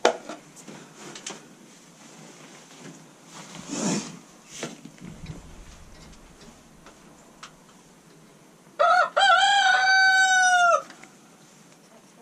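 A rooster crowing once, about nine seconds in: a short first note, then a long held note that sags slightly at the end, about two seconds in all and the loudest sound here. Before it come a sharp knock, then rustling and light clatter.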